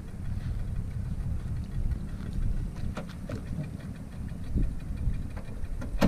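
Small boat outboard motor running at low idle as the boat is driven up onto its trailer, a steady low rumble. A few light knocks about three seconds in.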